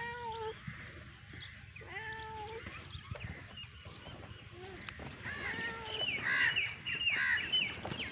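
Cat meowing twice in drawn-out calls, then several higher-pitched kitten mews overlapping one another, the loudest stretch, from about five seconds in.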